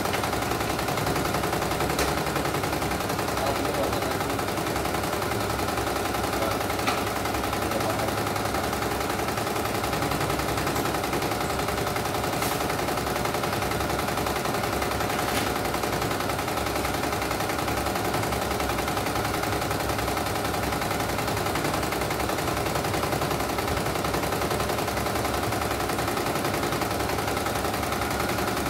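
CNY E900 computerized embroidery machine stitching a design: a steady, rapid chatter of needle strokes as the hoop carriage steps the fabric about. It is a test run after a mainboard replacement, and the machine runs without stopping.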